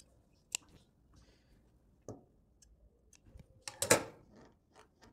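Light handling sounds of tailoring shears and cotton fabric on a sewing machine table: a few sharp clicks and taps, with a louder rustle of the fabric a little under four seconds in.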